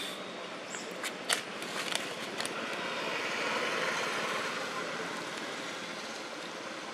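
A motorbike passing on the road, its noise swelling to a peak about halfway through and then slowly fading. A few sharp clicks come before it, between about one and two and a half seconds in.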